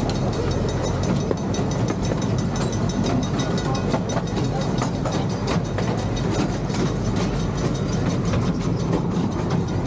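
Miniature ride-on train running along its track: a steady rumble with frequent clicks of the wheels over the rails.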